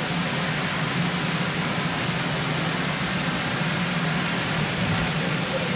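Marine One helicopter's turbine engines running on the ground, a steady, loud rush of engine noise that does not change.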